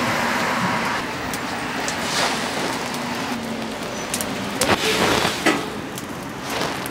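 Steady street traffic noise at an intersection, with a few sharp clicks or knocks in the second half.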